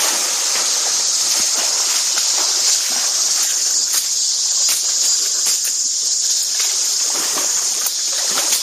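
A jungle river in full flood rushing steadily, with small irregular splashes in it.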